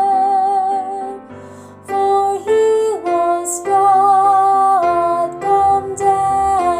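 Slow, gentle music: a melody of long held notes with vibrato over soft keyboard accompaniment.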